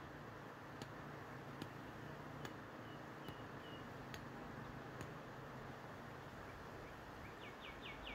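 Small pickaxe striking the ground in a steady rhythm: six blows a little under a second apart, stopping about five seconds in. A bird calls with a few short chirps partway through and a run of quick falling notes near the end.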